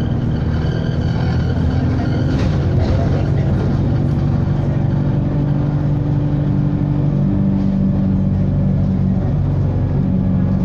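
Stagecoach Yorkshire bus running, its engine and drivetrain giving a steady drone with held low groaning tones that shift pitch a couple of times, and a faint high whine over the first few seconds.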